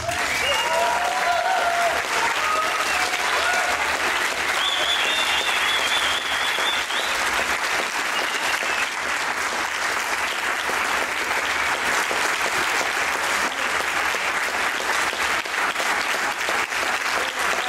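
Audience applauding steadily after a tango ends, with a few voices calling out over the clapping in the first several seconds.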